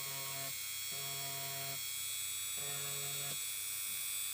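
Dremel 300 rotary tool running with a soft rubber-abrasive polishing tip, polishing solder mask and oxide off a circuit board's copper traces: a steady high whine, with a lower buzz that comes and goes three times.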